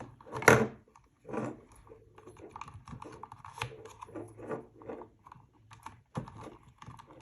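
Irregular small clicks, taps and rustles of wires and parts being handled and pushed into an actuator's enclosure, with a louder knock about half a second in.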